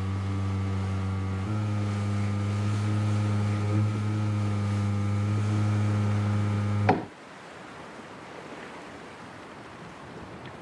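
A loud, steady low drone of several held tones, stepping slightly up in pitch about a second and a half in, that cuts off abruptly about seven seconds in; after that only a faint steady hiss.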